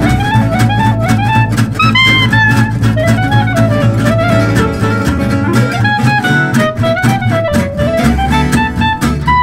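Gypsy jazz quartet playing: a clarinet carries a lead line that runs up and down over two Gitane acoustic guitars strumming a steady rhythm and an upright double bass.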